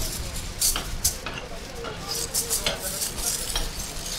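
Aluminium foil crinkling and rustling in irregular crackly bursts as a shawarma roll is wrapped by hand, over a steady low hum.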